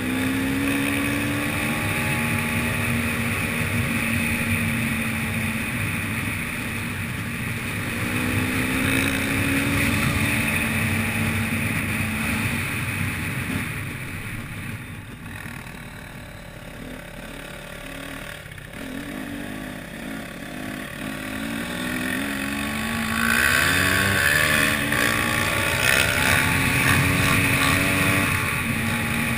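Enduro motorcycle engine heard from the bike's own camera while riding, the revs rising and falling as the rider works the throttle, with wind on the microphone. The engine drops to a quieter, lower running in the middle, then pulls harder again near the end.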